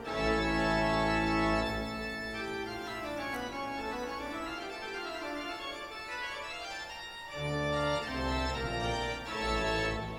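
Background music played on an organ: slow sustained chords, with the bass dropping out in the middle and coming back about seven and a half seconds in.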